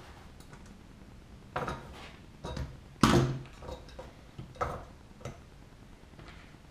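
Metallic clicks and knocks from hand tools and aluminium wing-rib parts being handled during riveting: about six sharp knocks in a few seconds, the loudest about three seconds in.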